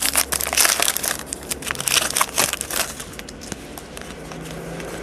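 Foil wrapper of a football trading-card pack crinkling as it is handled and opened. There is a dense crackle for the first two and a half seconds or so, then quieter rustling.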